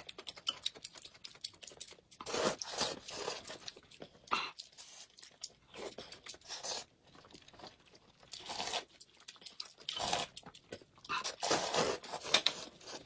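Close-up eating sounds: people chewing and slurping hot and sour sweet potato noodles and boiled eggs, in a string of separate bursts with short quiet gaps.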